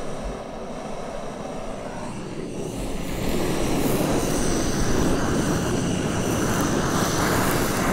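Handheld butane cooking torch burning with a steady rushing hiss, which grows louder about three seconds in.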